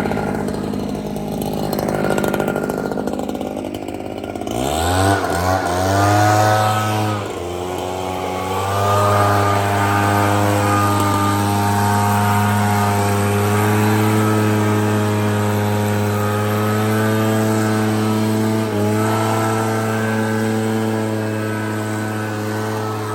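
Echo PB-9010 backpack blower's two-stroke engine running at low throttle, then revved up sharply about five seconds in. After a brief dip it is held steady at high throttle, blowing snow, with one short dip in revs near the end.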